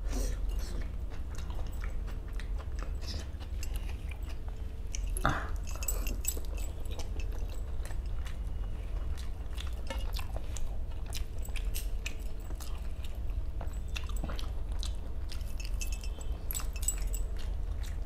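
Close-miked eating sounds of a person chewing and smacking on rawas fish masala and rice, with wet squishing as fingers pull the soft fish apart in the gravy. Many small clicks and smacks run over a low steady hum.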